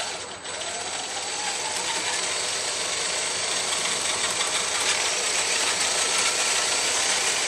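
Small electric motor and gear drivetrain of an RC rock crawler running with its wheels spinning free off the ground. It speeds up with a rising whine over the first second or two, then runs steadily with a high-pitched whine and gear noise.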